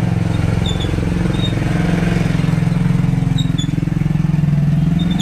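Honda RS150's single-cylinder four-stroke engine running steadily, its pitch rising and falling a little.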